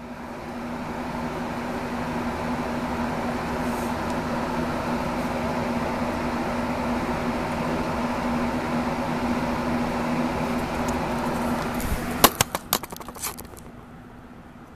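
A steady mechanical hum with a low steady tone. About twelve seconds in it is broken by a quick run of sharp clicks and knocks, and then the hum drops away.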